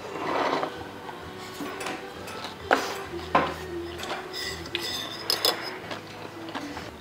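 A metal spoon and chopsticks clink against a metal bowl of bibimbap as it is eaten. There are several sharp clinks, the loudest near the middle, and a few carry a short metallic ring.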